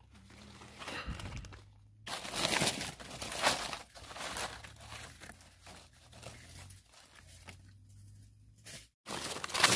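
Dry fallen leaves crackling and rustling in irregular bursts as a hand pushes through the leaf litter to pick mushrooms.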